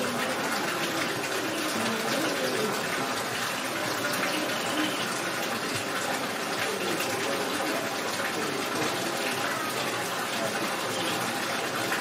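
Small artificial waterfall splashing steadily down a rock wall into a shallow pool.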